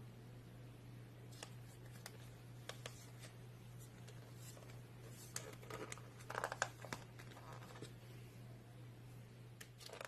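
Slime being squeezed and poked by hand, giving scattered soft sticky clicks and pops, busiest a little past the middle, over a steady low hum.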